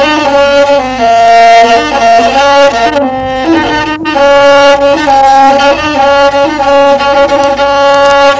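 Bedouin rababa, a one-string spike fiddle, bowed in a slow melody of long held notes with short slides between pitches.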